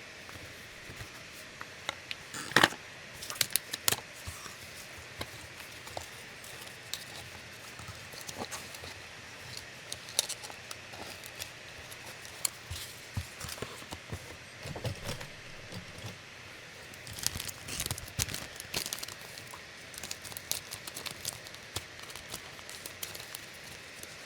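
Hands handling an action-camera kit's packaging and small parts: irregular clicks, taps and rustles of plastic and cardboard, with denser clusters of handling noise about two and a half seconds in and again near three-quarters of the way through.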